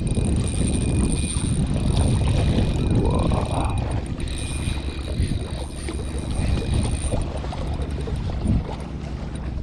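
Wind rumbling on the microphone by the sea, with a faint steady high whine over most of it that stops about seven seconds in.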